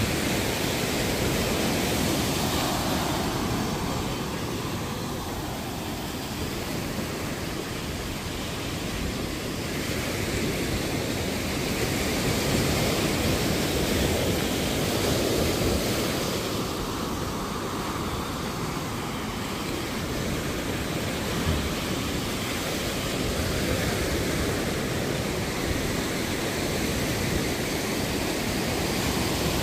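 Caribbean sea surf washing onto a sandy beach: a steady rushing noise that slowly swells and ebbs.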